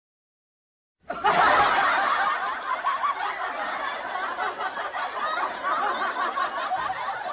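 Laughter, several voices at once, starting suddenly about a second in after a second of silence.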